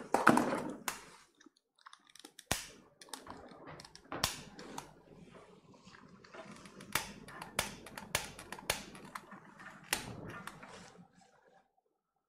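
Irregular sharp clicks and knocks of kitchen utensils and cookware being handled on a counter. They fade out near the end.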